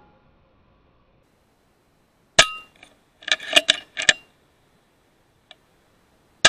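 Two shots from an FX Impact M3 .22 PCP air rifle firing slugs, each a sharp crack with a brief metallic ring, about four seconds apart. A quick run of metallic clicks and clacks comes between them.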